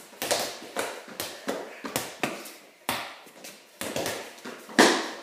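Basketball bouncing on a concrete garage floor, with about a dozen uneven hits, each followed by a short echo. The loudest hit comes near the end.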